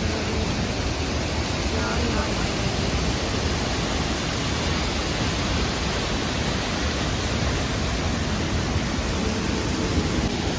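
Steady rush of water pouring down the roughly 200 m high Thoseghar waterfall, an even noise that does not let up.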